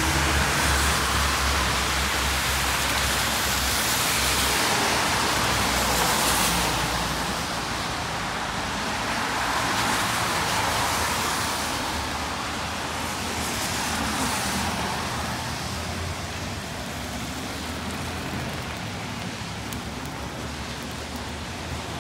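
Cars passing on a rain-wet street, their tyres hissing on the wet road, over a steady hiss of rain. The hiss swells and fades three times, about ten and fourteen seconds in as well as at the start, where a low engine rumble fades out.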